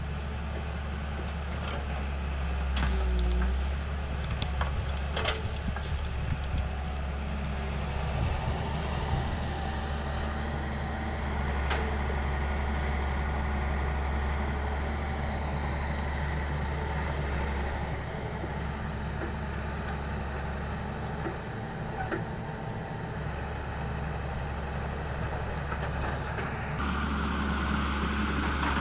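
Hyundai wheeled excavator's diesel engine running steadily as it digs, with a few sharp knocks and scrapes from the bucket working stony soil.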